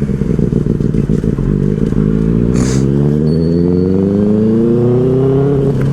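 Benelli 600i inline-four motorcycle engine pulling under throttle: the note stays low for the first few seconds, then climbs steadily as it accelerates through the rev range. A brief hiss sounds about two and a half seconds in.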